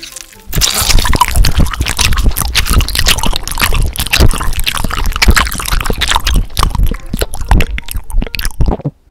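Close, loud ASMR squelching of sticky, wet chocolate-brown goo: a dense run of irregular wet clicks and smacks that stops abruptly near the end.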